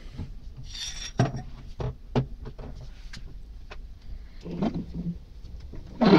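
Loose steel parts of a disassembled adjustable wrench (body, sliding jaw, worm screw) being handled and set down on a worktable: a brief scrape, then scattered light knocks and clinks, with a louder knock near the end.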